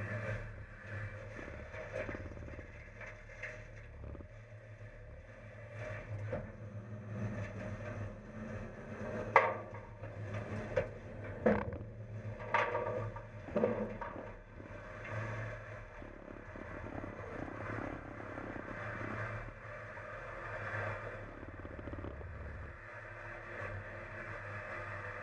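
Mack LEU front-loader garbage truck running, heard from inside its steel hopper, with loose recyclables rattling and scraping as the load shifts. A few sharp knocks and bangs land about nine to fourteen seconds in.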